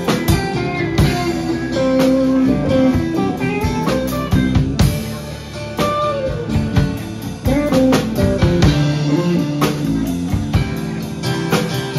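Live band playing an instrumental passage: electric and acoustic guitars with bass and a drum kit, with a guitar line whose notes glide up and down in pitch over steady drum beats.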